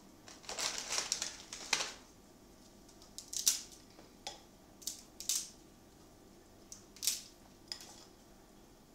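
A dry instant noodle block being broken and crumbled by hand into a bowl, crunching and crackling. There is a thick run of crackles in the first two seconds, then short crunches every second or two.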